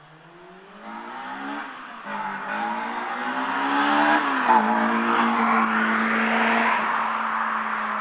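Honda Civic Type-R EP3's K20A VTEC four-cylinder, breathing through a Tegiwa carbon intake and Spoon N1 exhaust backbox, accelerating hard in a drive-by. The engine note climbs and drops at an upshift about two seconds in, then climbs again and drops at a second shift about halfway through, with a short loud crack at that shift. It then holds a steady note as the car passes and fades away.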